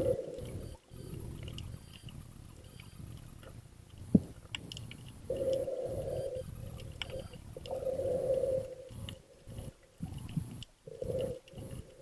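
Underwater sound through a camera's waterproof housing: a low rumble with several humming bursts about a second long and one sharp click about four seconds in.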